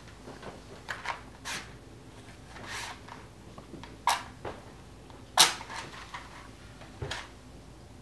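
Small objects handled at a side table: a scattered series of short clicks and scrapes, about seven in all, the loudest a little over five seconds in.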